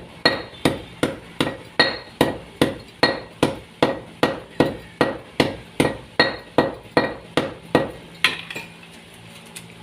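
A hammer striking in steady, evenly spaced blows, about two and a half a second, each with a short metallic ring. The blows stop about eight seconds in.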